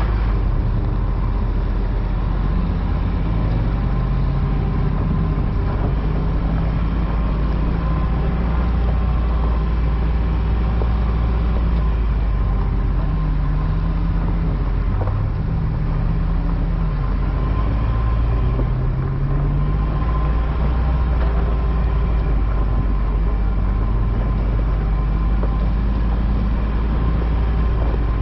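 Ram 1500 TRX's supercharged 6.2-litre V8 running at crawling speed, its pitch rising and falling several times as the throttle is eased on and off.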